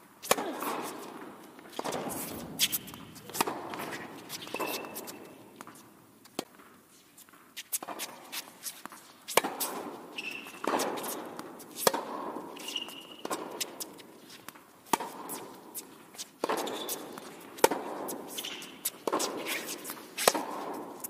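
Tennis rally on an indoor hard court: sharp racket strikes and ball bounces, several a few seconds apart, each echoing in the large hall, with a few short high squeaks of shoes on the court.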